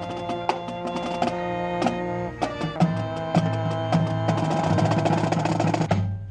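Marching band show music: quick struck pitched-percussion notes and drums over low sustained tones. The music stops abruptly near the end.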